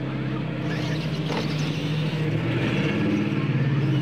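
Radio-controlled monster trucks launching off the start line and racing across gravel, with a hiss of motor and tyre noise from about a second in. A steady low hum runs underneath.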